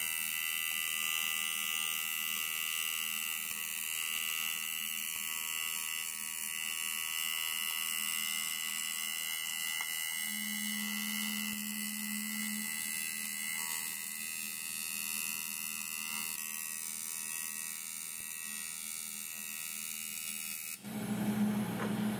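Electric welding arc buzzing and hissing steadily on an aluminium VW AP cylinder head, sealing the last corroded gallery with weld. It cuts off suddenly near the end as the arc is broken.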